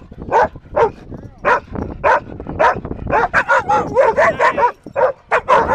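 Dogs barking repeatedly in short, sharp barks, about two a second at first, then coming faster and overlapping from about halfway in.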